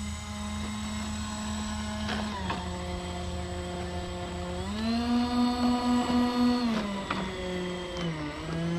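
Electric ducted fans of a twin-jet RC Me 262 whining at low throttle as the model taxis. The fans spool up to a higher, louder pitch about halfway through, drop back after a couple of seconds, and dip briefly again near the end.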